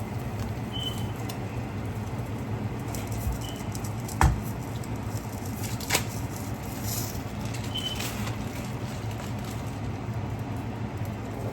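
Home kitchen cooking noise: a steady hum, with a single loud knock of a pan or utensil about four seconds in and a lighter click near six seconds.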